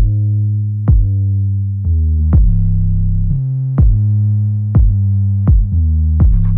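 Electronic background music: a drum-machine beat with a heavy hit about once a second over held synthesizer bass notes.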